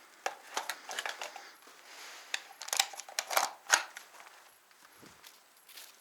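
Irregular crunching footsteps on loose, gritty ground, with a cluster of louder crunches around the middle.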